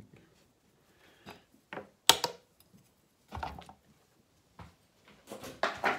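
Handling noises as a plastic pot of potting soil is lifted off a wooden turntable and set aside: a few scattered knocks and rustles, the loudest a sharp knock about two seconds in, with a cluster of knocks near the end.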